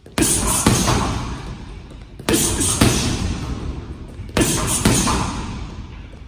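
Boxing gloves striking a hanging heavy bag in jab, jab, cross combinations: a quick group of two or three punches about every two seconds, each group echoing on.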